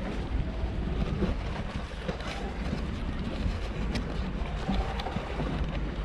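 Wind buffeting the microphone: a steady low rumble and rustle over faint harbour background noise, with a few light ticks.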